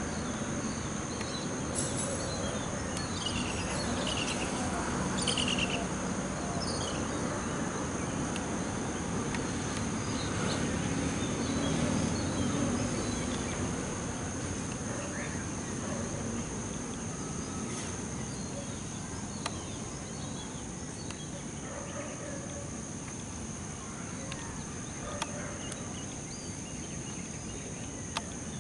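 Outdoor nature ambience: insects keep up a steady high-pitched drone, with a few short, falling bird chirps in the first several seconds, over a low background rumble.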